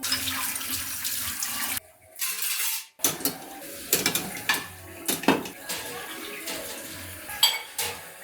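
Kitchen tap running into a sink for a couple of seconds, then dishes and utensils clinking and knocking.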